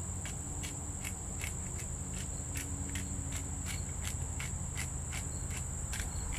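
Hand pepper mill grinding peppercorns: a short, dry crunch repeating evenly two to three times a second, over a steady high insect drone.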